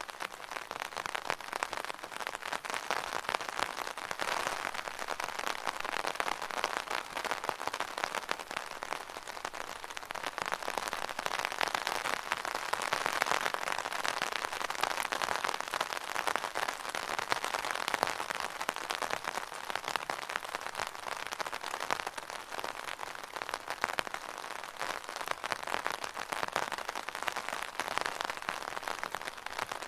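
Rain pattering steadily on an umbrella: a dense, continuous patter of many small drop hits.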